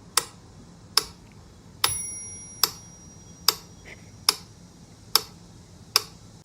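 Steady ticking: eight sharp, evenly spaced ticks about every 0.8 s, the third carrying a brief ringing chime.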